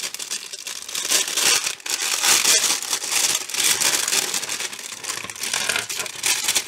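Stiff crinkly plastic parts bag being handled, crumpled and pulled open by hand. It gives a loud, continuous crinkling rustle.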